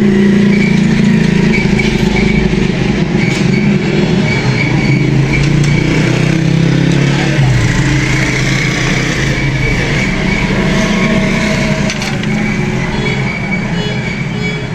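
Steady motor-vehicle engine noise, easing slightly in level near the end.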